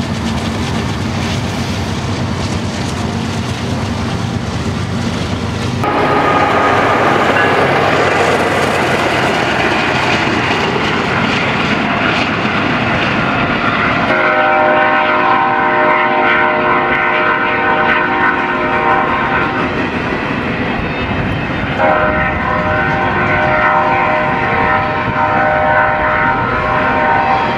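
Double-stack intermodal freight cars rolling past, wheels rumbling and clacking on the rails, the noise growing louder about six seconds in. Over it a locomotive air horn sounds a multi-note chord in two long blasts of about five seconds each, one about halfway through and one near the end.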